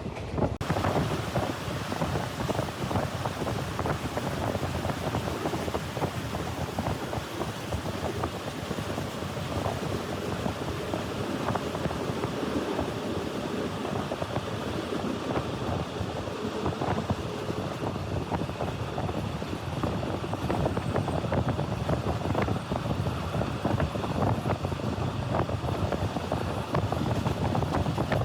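Steady rush of wind and a dense clattering rattle, the running noise of a moving passenger train heard from on board.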